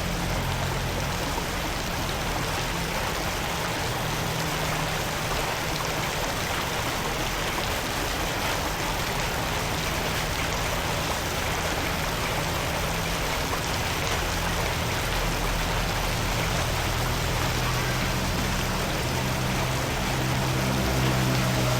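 Floodwater rushing steadily, with low steady tones underneath that change pitch in steps.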